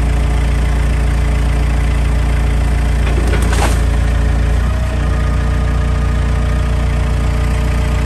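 Engine of a grapple-equipped machine running steadily while it handles storm-felled trees and stumps, with a short burst of noise about three seconds in as the grapple opens over the brush pile. The engine note shifts slightly just before the halfway point.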